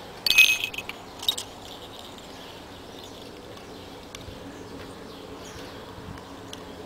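Small metal jingle bells jingling briefly as they are handled and hung on screw hooks, a short jingle about half a second in and a second, smaller one just after a second.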